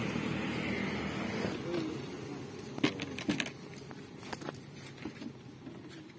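A motor vehicle's engine running by and fading away over the first two seconds, then a few sharp clicks.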